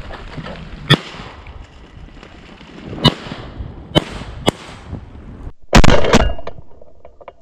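Shotguns firing: four sharp reports spread over the first four and a half seconds, then a much louder, closer blast about six seconds in, with a second shot right after it.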